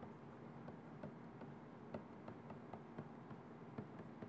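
Faint, irregular ticks and taps of a pen stylus on a tablet screen while writing letters by hand.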